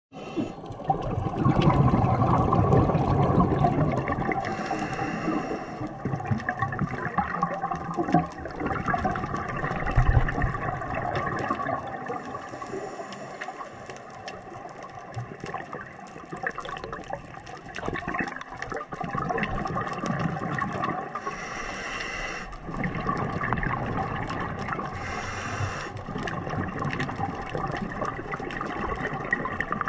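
Underwater sound of a scuba diver breathing through a regulator: continuous gurgling of exhaled bubbles, with a hiss of air every several seconds.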